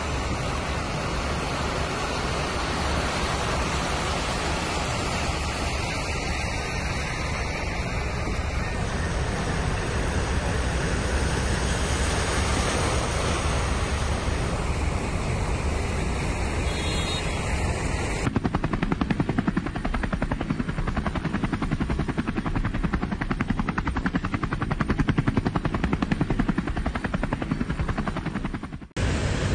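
Steady rushing noise of rain and floodwater running through flooded streets. About two thirds of the way in it changes abruptly to a rapid, low fluttering rumble.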